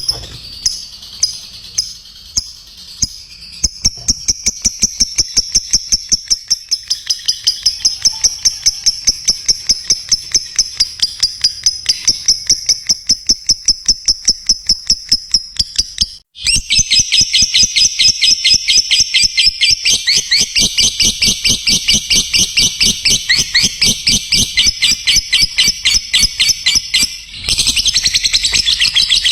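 Lovebird in long ngekek chatter: a fast, unbroken run of shrill repeated chirps, several a second, that stops briefly twice and picks up again.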